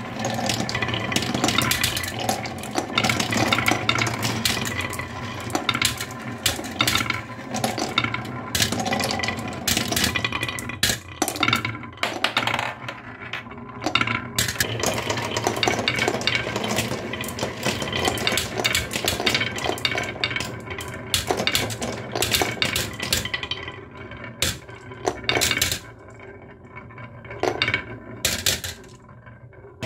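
Marbles rolling and clattering through a wooden marble run, a steady rolling rumble packed with clicks and knocks as they circle the carved wooden funnel, drop through it and run down the wooden tracks. Near the end it thins to a few separate clacks.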